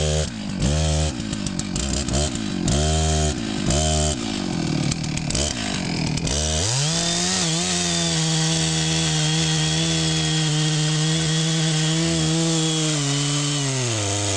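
Two-stroke chainsaw revved in several short bursts, then held at full throttle for about seven seconds as it cuts into the base of a tree trunk, the revs dropping back near the end.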